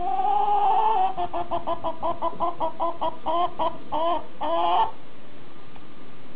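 An animal call: one held note, then a fast quavering series of about five short notes a second, ending in a longer note about five seconds in.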